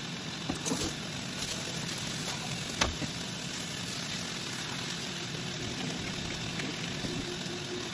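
Coolant gun spraying coolant over the cast-iron T-slot table of a CNC machining centre to wash off metal chips: a steady rushing hiss, with a sharp tap a little under three seconds in.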